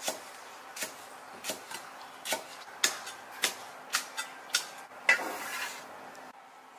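Cleaver chopping green garlic on a thick end-grain wooden chopping block: about ten separate knocks of the blade on the wood at an uneven pace. Just after five seconds in, a longer scrape as the chopped pieces are swept off the board.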